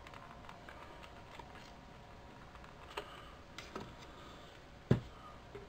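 Light clicks and taps from small items being handled on a workbench, a few faint ones followed by one sharper click just under five seconds in.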